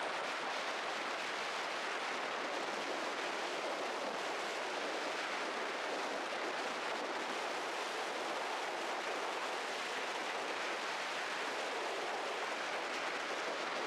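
Strong wind rushing steadily as an even hiss, with no distinct gusts or other sounds standing out.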